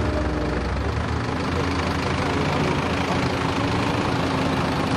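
Unimog 404 S trial truck's engine running steadily as the truck crawls slowly over rocks, its pitch shifting slightly about a second in.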